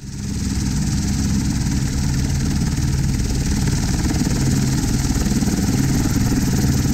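Helicopter running on the ground with its main rotor turning: a steady engine hiss over a fast, low beating of the rotor blades.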